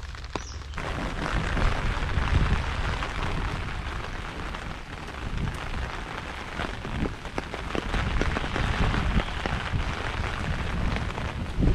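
Steady rain falling on a wet road and vegetation, a dense hiss with scattered drop ticks and a low rumble underneath, growing louder about a second in.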